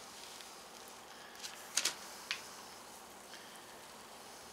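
Hands handling the paper transfer tape over a wet vinyl decal: a few short rustles of the paper just before two seconds in and one more a moment later, over faint room hiss.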